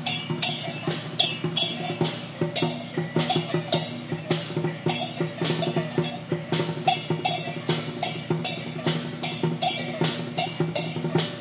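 Chinese procession percussion: drums, gongs and cymbals played together in a fast, steady rhythm, with clashes about three times a second over a ringing low tone.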